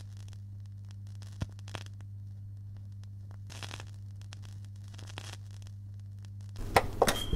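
A steady low hum with faint scattered clicks and short rustles over it. A few louder sharp clatters come near the end.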